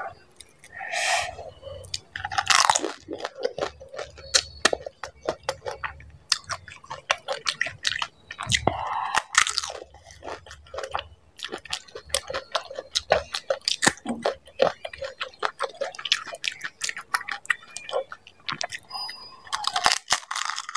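Close-miked chewing of dahi puri, crisp hollow fried puri shells loaded with yogurt, crunching between the teeth in many quick, irregular clicks, mouthful after mouthful.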